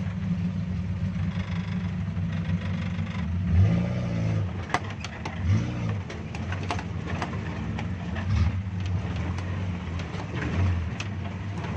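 Suzuki Jimny's engine running low and steady, revving up briefly four times as it crawls over rocks, with scattered knocks and clunks from about five seconds in.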